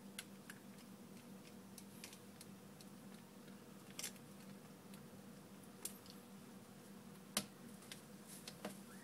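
Faint, scattered clicks and taps of a precision screwdriver and small screws against an iPhone 4's metal mid-frame, the sharpest click about seven seconds in, over a faint steady hum.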